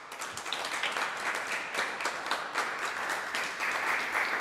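Applause: many hands clapping, starting abruptly and holding steady.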